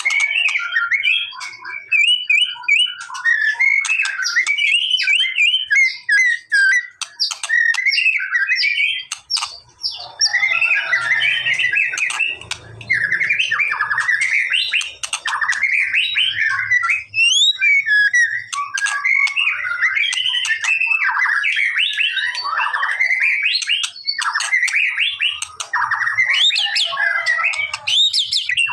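White-rumped shama singing a continuous, rapidly varied song of whistles, chirps and rattling phrases.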